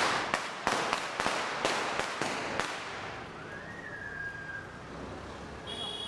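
A string of firecrackers bursting, a rapid run of sharp bangs at about four a second that stops about two and a half seconds in. After that only background noise remains, with a short rising whistle in the middle.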